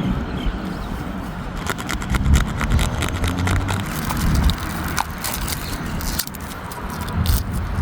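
Goalkeeper gloves and their packaging being handled: rustling, crinkling and scraping, with many small crackling clicks from about two seconds in, over a low rumble.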